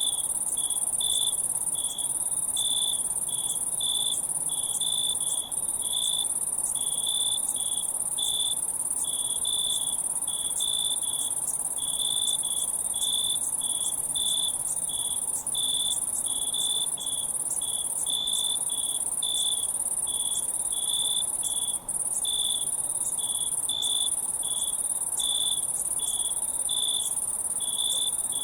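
Crickets chirping: a cricket's chirps repeat about twice a second over a steady, very high-pitched chorus of insects.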